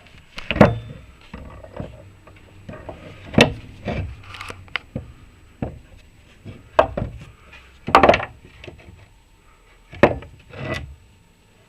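Removed Lada Niva rear suspension trailing links and their bolts being handled, giving irregular clunks and knocks of metal parts with some rubbing in between, about six sharp knocks spread across the span.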